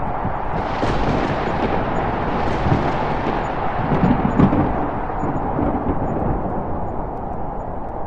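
A rumbling sound effect over a steady noisy roar, swelling twice with deep rumbles in the middle.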